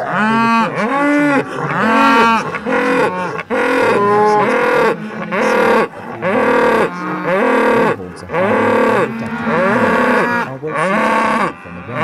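Cattle mooing over and over, loud calls about one a second, each rising and then falling in pitch.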